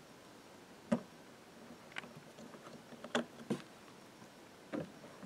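A handful of light, sharp knocks and clicks, about five spread over a few seconds, from a hollow plastic kayak outrigger float being handled and turned over.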